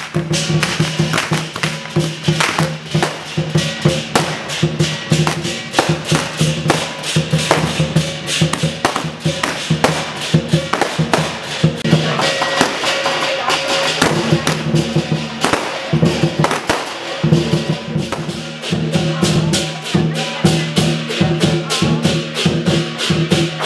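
Lion dance percussion: drum and cymbals played in fast, continuous strokes.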